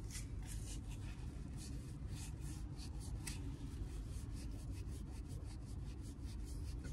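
Paper napkins rubbed hard against trouser fabric to wipe off a spill, in repeated short strokes about two or three a second, over a steady low room hum.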